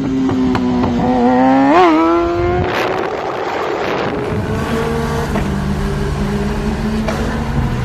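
Sport motorcycle engine revving, its pitch rising with a sharp blip, then a loud rush of exhaust as it accelerates past. After a cut, a motorcycle engine runs at fairly steady revs, its note stepping up and down a few times.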